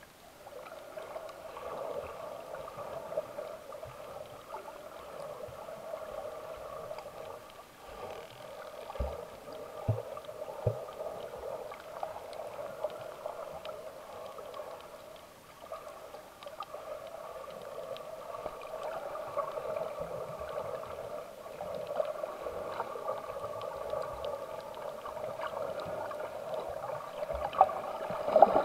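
Underwater sound from a camera held below the surface: a steady muffled hum with water gurgling, and a few low knocks about nine to eleven seconds in.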